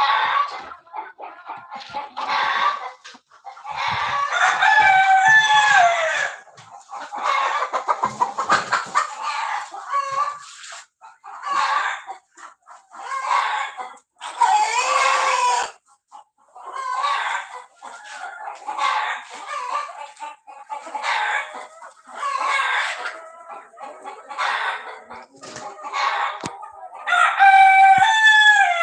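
Flock of Kadaknath chickens clucking and calling almost without a break, with a few louder, long drawn-out calls.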